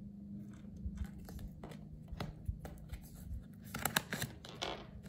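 Tarot cards being handled on a table: faint scattered taps and rustles of card stock, with a brief, louder flurry of card clicks and rustling about four seconds in.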